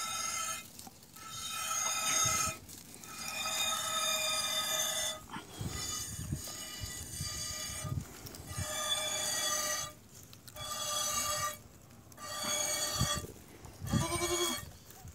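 A goat bleats once near the end, a short call that rises and falls in pitch. Under it, soft background music runs in phrases that keep stopping and starting.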